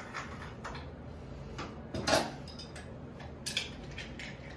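A few light clicks and taps, spaced irregularly, over a low steady room hum.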